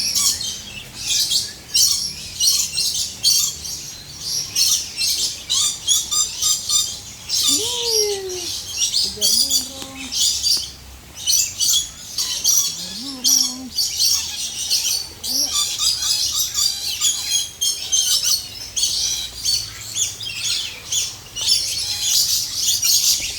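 Many small birds chirping at once, a dense, continuous chorus of quick high-pitched chirps.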